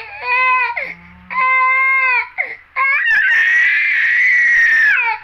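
Infant crying: a few short wails, then about three seconds in a long, much higher-pitched cry that holds for around two seconds.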